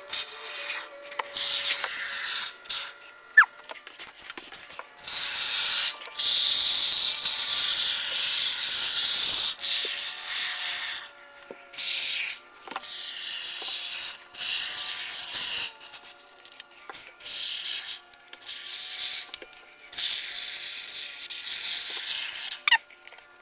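Can of low-expansion window-and-door spray foam hissing in repeated bursts as foam is laid into the gap around a door frame, the longest spray lasting about four seconds near the middle.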